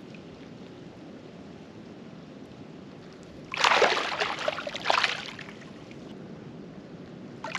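Water and wet mud sloshing and squelching as an arm is pushed down into a flooded mud crab hole, feeling for a crab: a noisy burst of about a second and a half beginning about three and a half seconds in, with a faint steady hiss before and after.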